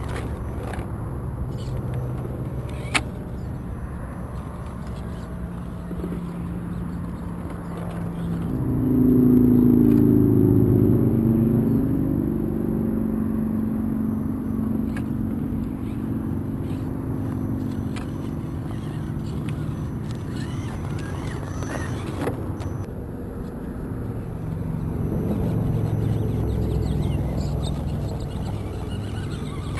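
Road traffic: motor vehicles driving past, loudest about nine seconds in with a falling engine note, and swelling again near the end.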